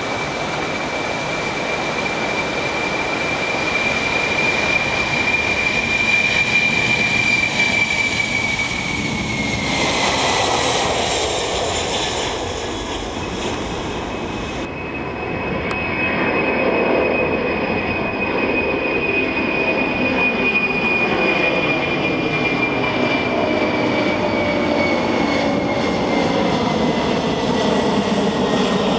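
Boeing 747-400's jet engines at takeoff power: loud, even jet noise with a high whine that drops in pitch about ten seconds in. After a cut about halfway, similar jet noise continues with a whine that slowly falls as the airliner climbs away.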